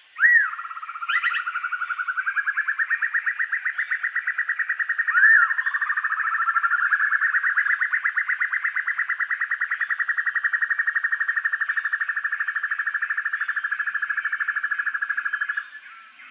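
Sempur-hujan rimba broadbill calling: a sharp rising-and-falling note, then a long, fast, even trill held for about fifteen seconds. A second sharp note breaks in about five seconds in, and the trill stops shortly before the end.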